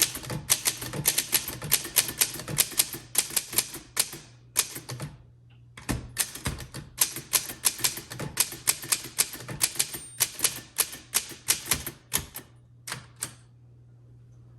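1954 Voss ST24 manual typewriter being typed on in quick runs of sharp keystroke clicks. A short break comes about five seconds in, and the typing stops about a second before the end.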